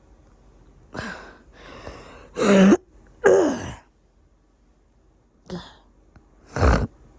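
A person coughing with a congested cough: a breath and two loud, voiced coughs close together around the middle, then a short cough and another loud cough near the end.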